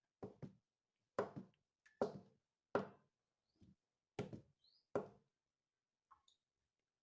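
Blended soybean mash being mixed with water in a bowl: a run of short knocks and sloshes, about one a second, that fades out near the end.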